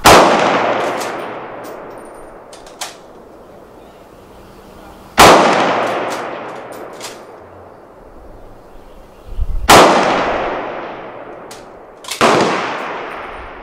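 Four rifle shots from a .308 Savage Impulse fitted with a 3-port muzzle brake, the first three about five seconds apart and the last soon after the third, each report echoing and dying away over two to three seconds. Faint short clicks sound between the shots.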